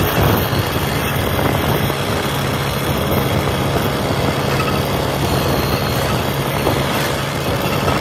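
Steady engine hum under loud, even wind and road noise from a vehicle moving along a road.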